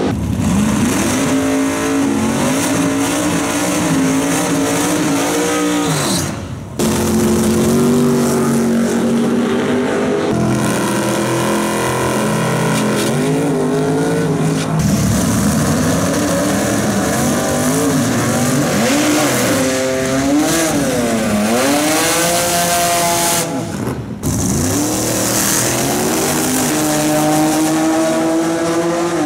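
Drag racing cars at full throttle, launching and accelerating down the strip one after another. The engine pitch climbs and drops again and again with the gear changes, and the sound breaks off briefly twice where one car's run gives way to the next.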